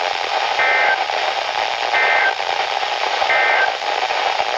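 Emergency Alert System end-of-message data bursts from a radio receiver: three short, identical two-tone digital squawks about a second apart, over steady radio static hiss.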